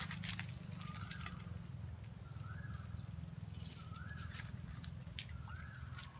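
An animal calling again and again, a short note that rises and then levels off, about every second and a half, over a steady low hum. A few light knocks and splashes are scattered through it.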